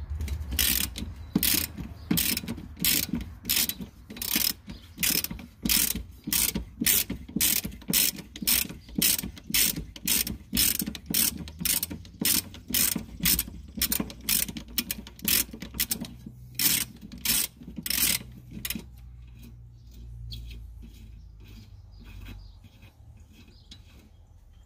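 Ratchet wrench with a 17 mm socket clicking in quick, even strokes, about two or three a second, as it runs the ball-joint nut off the rear upper control arm. The clicking stops a few seconds before the end.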